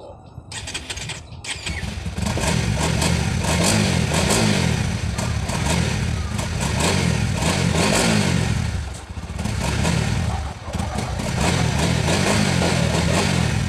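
Honda CBR sport bike engine starting up in the first couple of seconds, then running and being revved up and down about three times, with short dips back toward idle between the swells.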